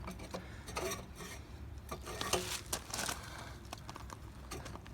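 Light clinks, taps and scraping of hard objects being handled, busiest about two to three seconds in.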